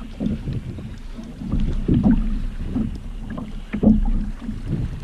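Water slapping and splashing around a fishing kayak in irregular low knocks, several a second, with wind rumbling on the microphone.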